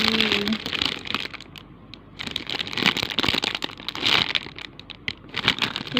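Plastic packaging crinkling and crackling as it is handled, easing off for about a second early on and then picking up again.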